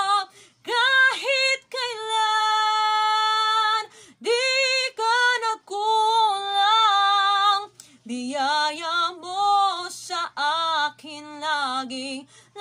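A woman's voice sings a Tagalog worship song without clear words, played back from a computer. She holds long notes, then moves into quicker rising and falling runs about two-thirds of the way in.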